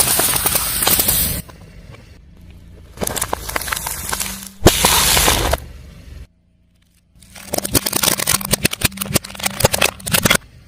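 Car tyre rolling over and crushing crunchy objects: bursts of crackling and snapping in several separate takes, with one sharp crack about halfway through and a brief silent gap after it.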